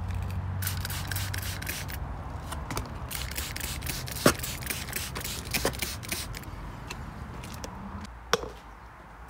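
Trigger spray bottle of adhesive remover squirting again and again along a car's body sill: a run of short hissing sprays with trigger clicks, over a low steady hum that fades near the end.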